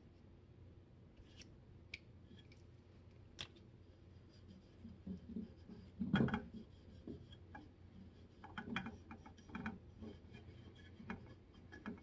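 Light clicks, small knocks and rubbing as parts of a pneumatic framing nailer are handled and fitted back together during an O-ring rebuild. The sounds are sparse at first and busier in the second half, the loudest knock about six seconds in.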